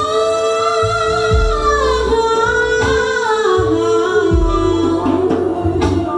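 Live band music: a woman sings a long wordless note that holds steady and then slides down about two thirds of the way through, over a slow, even kick-drum beat.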